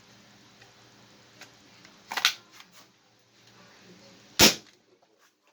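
A tuned, spring-powered Nerf Rival Knockout blaster with a brass barrel and breech firing a cut-down foam dart: one sharp crack about four seconds in. A shorter, softer clack comes about two seconds in.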